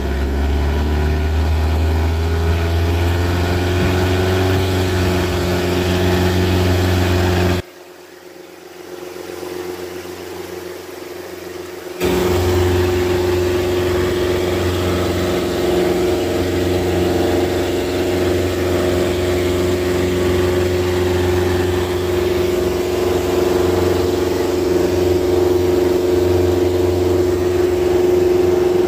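Van's RV-4 light aircraft's piston engine at full power during the takeoff roll and climb-out, heard from inside the cockpit as a loud, steady drone whose pitch rises slightly at first. About a third of the way in it drops much quieter for about four seconds, then returns steady.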